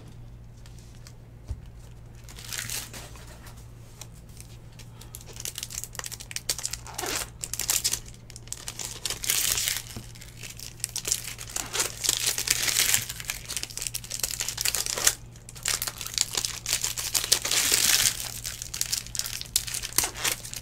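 Foil wrappers of 2019 Bowman Baseball hobby packs crinkling and rustling in the hands as packs and cards are handled and flipped through. It comes in repeated bursts after a quiet couple of seconds and grows busier about six seconds in, over a steady low hum.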